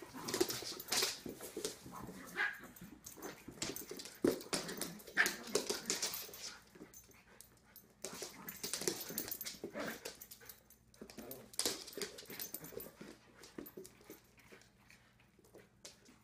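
A puppy and a giant poodle at play: bouts of short whines, yips and scuffling, with brief lulls between the bouts.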